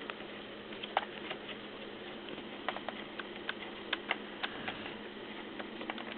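Small irregular clicks and ticks of a screwdriver and fingers working at a laptop's plastic case, removing the screws that hold the keyboard.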